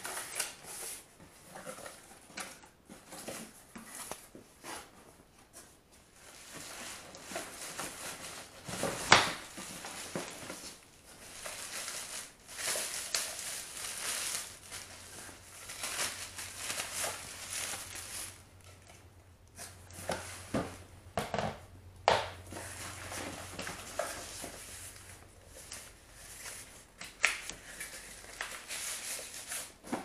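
Cardboard box flaps and plastic packaging being handled while a box is unpacked: irregular rustling and crinkling with scattered bumps and knocks, one loud knock about nine seconds in.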